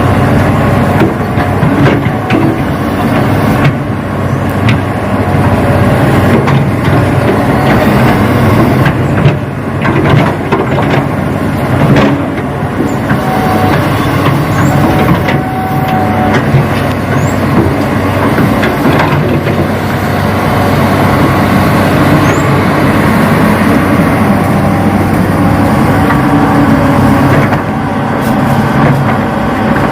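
Radio-controlled Hitachi model excavator working, with a steady engine-like running drone that varies a little in level, and a short higher whine now and then.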